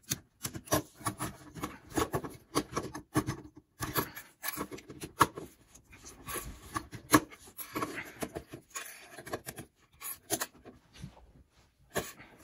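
Plastic LEGO bricks being pulled apart by hand: many irregular clicks and snaps, with rubbing between them.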